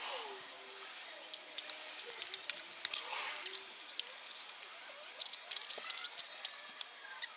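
Cloth wiping and rubbing on plastic interior trim, with many short scratchy clicks as the parts are handled while being cleaned and treated with protectant. Faint thin gliding tones sound underneath.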